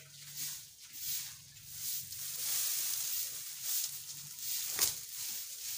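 Dry mustard stalks rustling and crackling as armfuls are lifted and shaken, with the scratch of a straw broom sweeping the ground, over a faint steady low hum. A sharp tick near the end.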